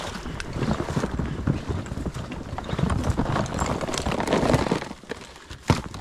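Wind buffeting the microphone, with irregular knocks and rustling throughout; it drops away about five seconds in, with one sharp knock just before the end.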